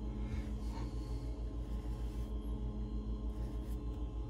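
A steady low hum with a regular pulsing beat.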